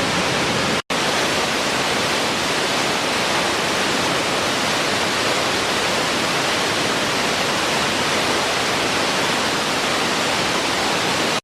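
Waterfall: a steady, even rush of falling water, broken by a momentary dropout just under a second in.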